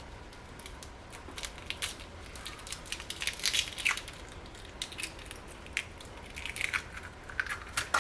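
Eggshells crackling as two eggs are cracked open and their shells pulled apart by hand: a run of light, irregular crackles and clicks.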